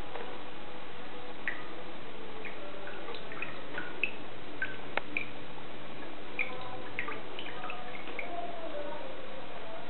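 Water from a sink tap running and splashing onto a hand and a bathing lovebird, with many short, high plinks of drips scattered through it.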